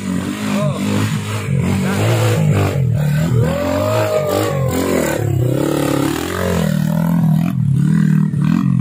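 Trail dirt bike engine revving up and down repeatedly as the bike rides past close by, about halfway through.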